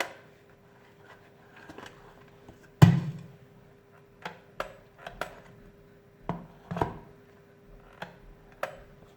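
Scattered clicks and knocks from an electric kettle being handled during repair, with one louder knock about three seconds in.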